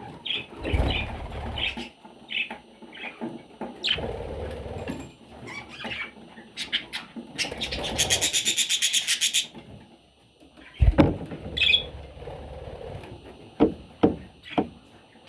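Budgerigar chicks calling: short high chirps, then a fast raspy train of begging calls lasting about two seconds from around seven and a half seconds in. Several sharp knocks and low shuffling come near the end.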